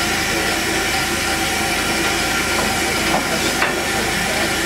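Steam hissing steadily from LNER A4 Pacific locomotive 60007 Sir Nigel Gresley, with two faint clicks a little past three seconds in.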